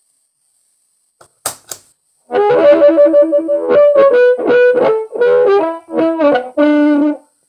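Amplified blues harmonica played through the HarpMojo EQ pedal on its sweet-boost setting: a short phrase of held notes and chords with rich overtones, starting about two seconds in. Two sharp clicks come just before the playing.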